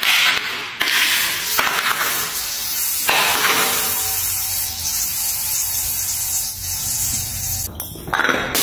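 A green glass bottle rolling and knocking down marble stairs, a continuous scraping rattle broken by a few knocks.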